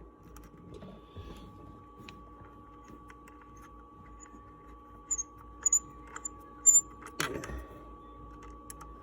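Quiet small clicks and taps of hands connecting speaker wires to a subwoofer's screw terminals. A few short high chirps come about five to seven seconds in, and a louder knock comes about seven seconds in, over a faint steady hum.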